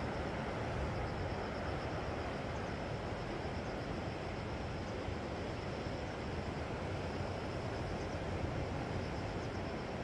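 Sea waves washing steadily around offshore rocks, an even hiss with a low rumble, with a faint, high, evenly pulsing tone above it.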